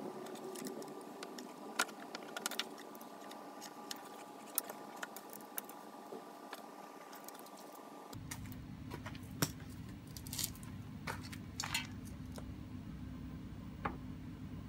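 Scattered small metallic clicks and rattles of hands working loose a hose fitting at a Honda Today scooter's carburetor, with the engine off. About eight seconds in, a steady low hum comes into the background, with a few more clicks.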